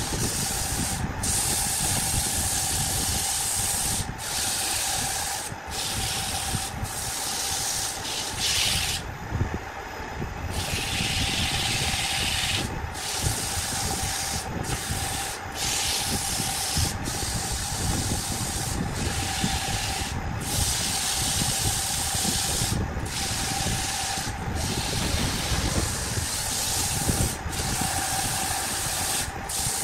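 Sandpaper held by hand against a wooden workpiece spinning on a wood lathe, giving a continuous hissing rasp over the lathe's steady running tone. The hiss breaks off briefly again and again, once for over a second about a third of the way in.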